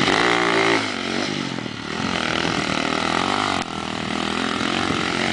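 Quad bike engine revving hard and easing off again and again as the ATV churns through mud. It is loudest for the first second, then drops and swells, with a brief dip a little past halfway.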